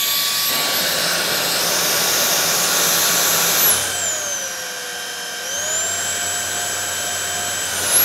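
ROIDMI X30 Pro cordless stick vacuum running at its maximum power setting: a steady high motor whine over a rush of air. About halfway through, the whine and airflow sink in pitch and loudness, then climb back up near the end.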